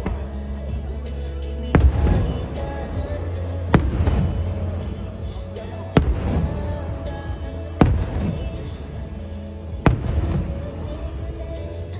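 Aerial firework shells bursting overhead: five sharp bangs about two seconds apart, each trailing off in a rumble, over background music and voices.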